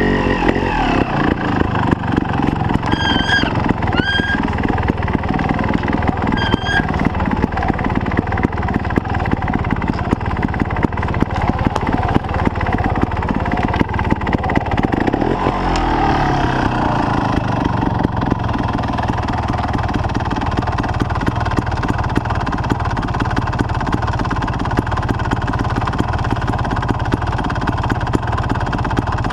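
Trials motorcycle engine running at low revs as the bike is ridden slowly through snow and mud, with a rise and fall in revs about halfway through. A few short high squeaks sound over it in the first several seconds.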